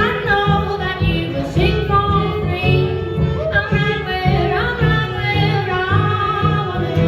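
A woman singing a song live, holding and bending long notes over a band accompaniment with a steady low pulse, recorded through a cell-phone microphone in the audience.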